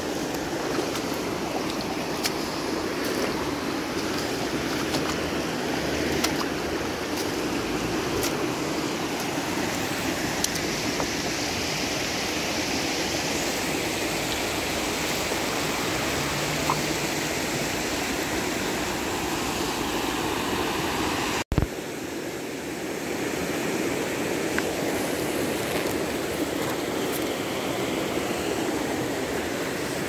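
Creek water rushing steadily over shallow rocks and stones. About two-thirds of the way through, the sound drops out briefly and abruptly and comes back with a click.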